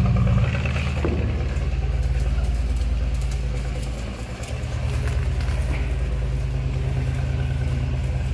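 A large engine idling steadily, a low, even hum with a slight dip in level about four seconds in.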